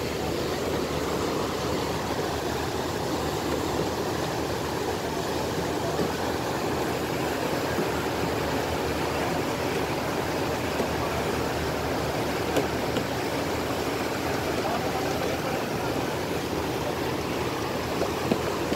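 Steady rushing of a ferry's churning propeller wake mixed with the running of its engines, an even noise with a few faint knocks.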